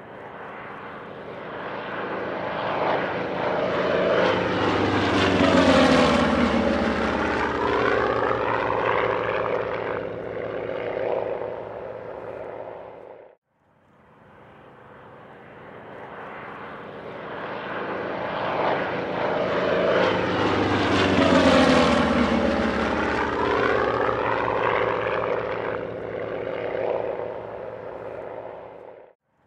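A-1H Skyraider and P-47D Thunderbolt radial-engined propeller warbirds flying past. The engine note swells to a peak and then drops in pitch as they go by. The same pass plays twice, each time cut off abruptly.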